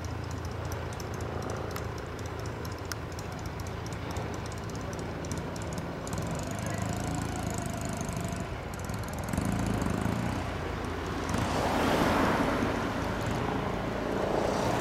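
Kawasaki W1S motorcycle's 650 cc class vertical-twin engine running at low speed in slow street traffic, a steady low engine note. About eleven seconds in, a car passes close and traffic noise swells over it.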